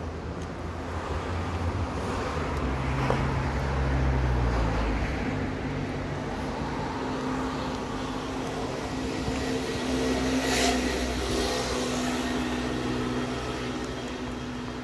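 Road traffic: motor vehicles running and passing close by. The engine hum swells about four seconds in and again around ten seconds, with a steady engine tone through the second half and a couple of sharp clicks.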